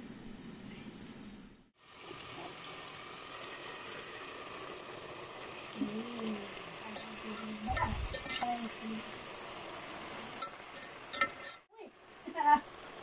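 Steady sizzling hiss from a pot of biryani cooking on the stove while half-boiled rice is layered over chicken curry with a wire strainer. A few light metallic clicks and a dull knock sound near the middle, and the sound cuts out briefly twice.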